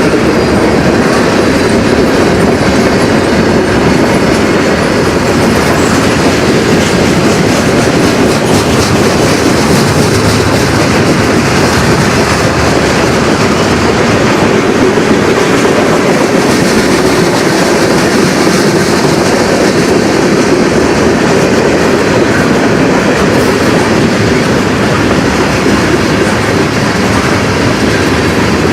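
Freight train cars rolling past at close range: a steady, loud noise of steel wheels on rail with clickety-clack.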